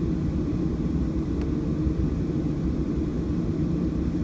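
Boeing 737-700's CFM56 jet engines heard from inside the cabin as a steady low rumble while the airliner is on the ground before takeoff. A faint click sounds about a second and a half in.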